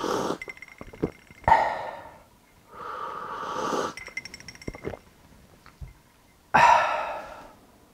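A man noisily sipping coffee from a mug, with breathy slurps and breaths between the sips, then a breathy exhale near the end.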